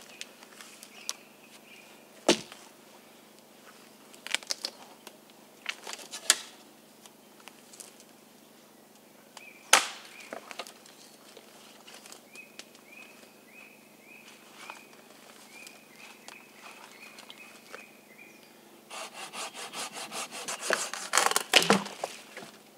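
Dead branches cracking and snapping in a few separate sharp breaks as deadwood is gathered for firewood. Near the end comes a quick rhythmic run of hand-saw strokes through wood.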